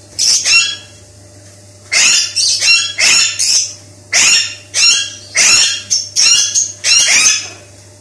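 Fischer's lovebirds calling: a quick series of short, shrill, high-pitched chirps, many in pairs, with a brief pause about a second in. A faint steady low hum runs underneath.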